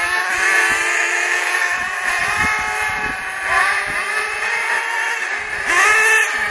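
Radio-controlled off-road cars running, their small high-pitched engines revving up and easing off again and again.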